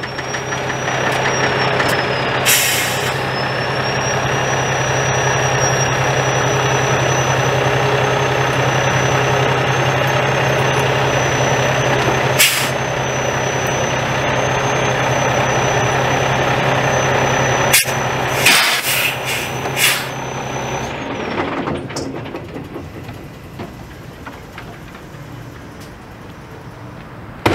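Semi tractor's diesel engine running steadily as the truck pulls slowly ahead onto its tire chains, with short air hisses from the air brakes several times (about 2.5 s in, about 12.5 s in, and a cluster around 18–20 s). The engine note stops about three-quarters of the way through.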